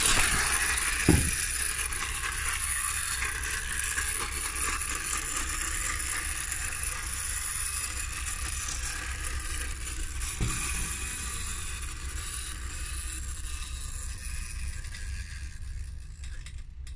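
Toy ice cream truck's clockwork motor whirring as the truck rolls across a wooden floor, slowly fading as it runs down. Two knocks near the start and another about ten seconds in.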